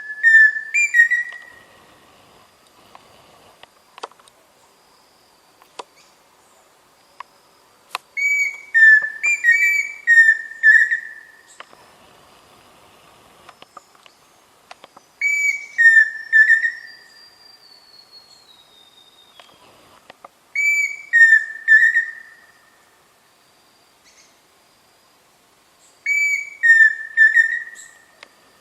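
Pheasant cuckoo (peixe-frito) singing: a short whistled phrase, a higher note dropping to lower ones and ending in a quavering note, repeated about every five or six seconds, six times in all.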